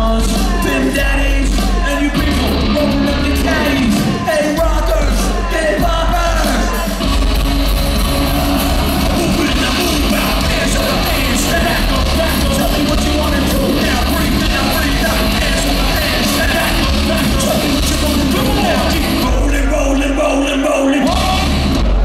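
Live rap-metal band playing loud through a concert PA: heavy bass, guitar and drums under a rapped, shouted lead vocal. About a second and a half before the end, the bass and drums drop out for under two seconds, then come crashing back in.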